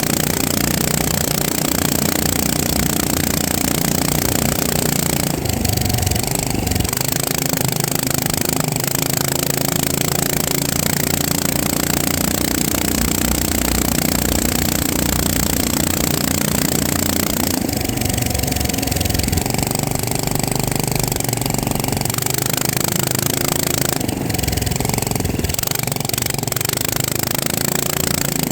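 FPV drone's motors running continuously with a dense buzzing hiss, their pitch shifting as the throttle changes, most noticeably about six seconds in, around eighteen seconds and around twenty-four seconds.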